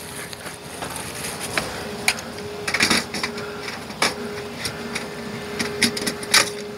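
A metal lamp ballast clicking and knocking against the sheet-metal deck-lamp fixture of a Brunswick GSX pinsetter as it is laid in and pressed into place: scattered sharp knocks, the loudest about three seconds in and near the end, over a steady low hum.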